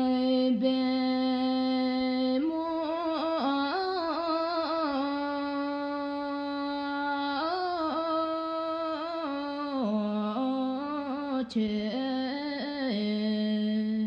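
A solo voice singing a slow Bhutanese folk song unaccompanied. It opens on a long held note, then moves through quavering, ornamented turns with further sustained notes between them.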